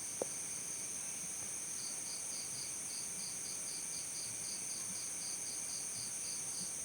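A chorus of crickets trilling steadily at a high pitch, with one cricket chirping in an even series of about four chirps a second from about two seconds in. A single short click sounds just after the start.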